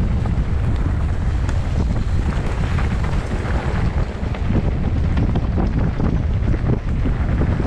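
Strong wind buffeting the microphone: a loud, continuous, gusting rumble.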